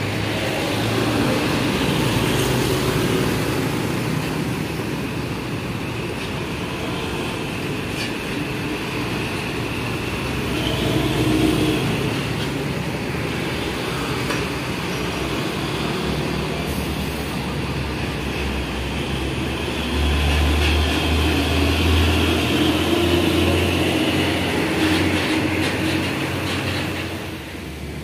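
Heavy diesel trucks and motorcycles passing close by on a busy highway, engines running and tyres on the road, the noise swelling as each vehicle goes by. A deeper low engine drone comes in about two-thirds of the way through.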